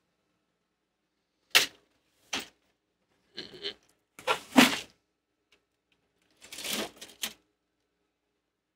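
Small hard objects clicking and clattering as they are handled and set down, in about five short bursts, the loudest a sharp knock about halfway through.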